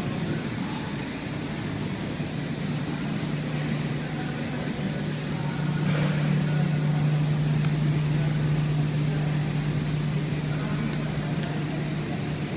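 Steady low mechanical hum at one pitch, over faint room noise, growing a little louder for a few seconds in the middle.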